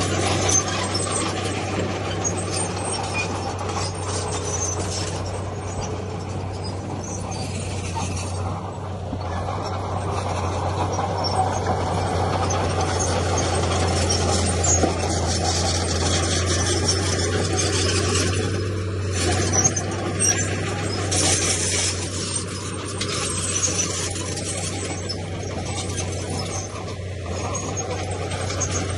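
Heavy diesel earthmoving machinery running steadily under a constant low engine hum, with scraping, clanking and occasional squeals over it.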